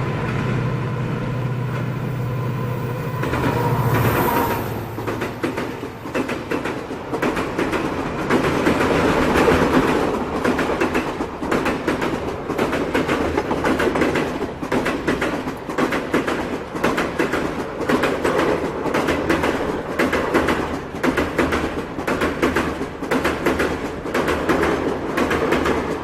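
A WDP4D diesel locomotive passes with its engine running in a steady drone that drops slightly in pitch about four seconds in. The passenger coaches behind it then roll by, their wheels clattering over rail joints again and again in a continuous clickety-clack.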